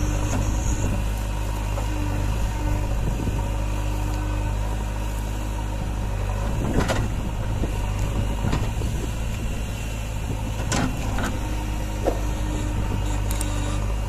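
JCB 3DX backhoe loader's diesel engine running steadily while the backhoe arm digs and swings soil into a truck, with a few short knocks about halfway through.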